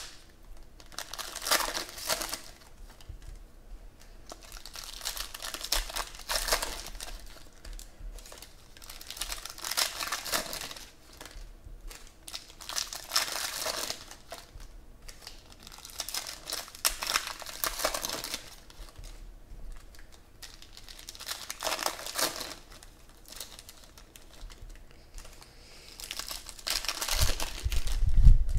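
Foil wrappers of 2017 Panini Prizm Football trading-card packs crinkling and tearing as they are opened by hand, in separate bursts every few seconds. Near the end there is a louder burst with a low thump.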